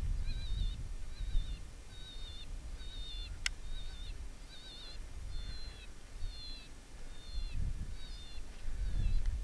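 Predator call sounding a steady series of short, high, wavering squeals, nearly two a second, used to lure in a coyote. Under it is a low wind rumble on the microphone, and a single sharp click comes about three and a half seconds in.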